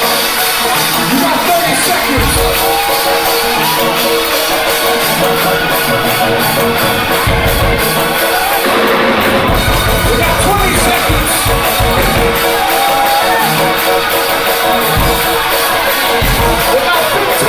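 Loud live gospel music: a band with drums under a long held note, with voices singing sliding lines over it.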